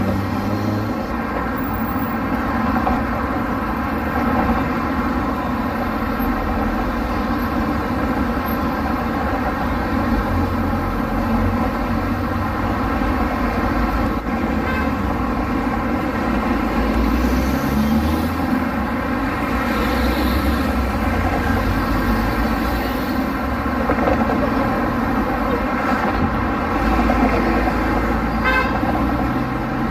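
Street traffic: car and truck engines running and passing in a continuous low rumble, with an engine pitch rising a little past the middle.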